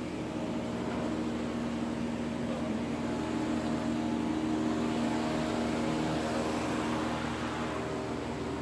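Steady mechanical hum with a hiss and several held tones, the drone of running machinery such as pumps, filters or fans. The tones grow stronger about three seconds in.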